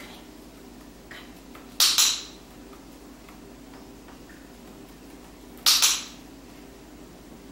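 Training clicker pressed twice, about four seconds apart. Each press gives a sharp double click-clack. This is the marker signal in a cockatiel's clicker training.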